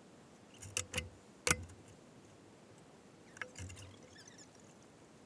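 A few sharp knocks and clunks: three in quick succession about a second in, the last of them the loudest, then two softer ones a couple of seconds later.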